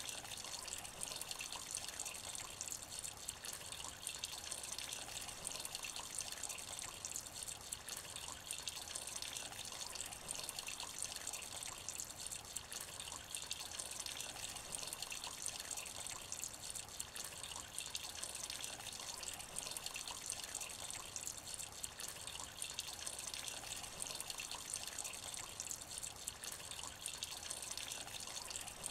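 Light rain falling into a shallow puddle: a steady, dense run of small drops splashing on water, many fine ticks over a soft hiss.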